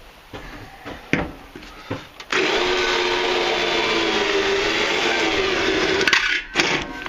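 Power drill with a twist bit boring through the sheet-metal floor of a homemade forge's coal box, running steadily from about two seconds in after a few light knocks. Near the end the drill stops and starts in short bursts.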